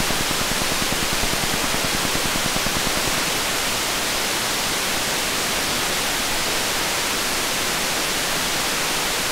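Steady hiss of amplified noise from an LM1458 dual op amp (a dual 741) in a gain-of-101 test circuit with a 10k source resistor, which reads −68.75 dB of noise.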